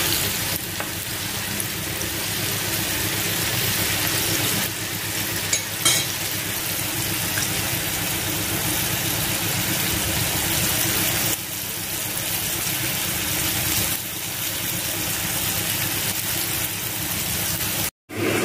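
Thin flour-battered chicken fillet pieces deep-frying in hot oil, a steady sizzle with a couple of sharper pops about six seconds in. It breaks off suddenly near the end.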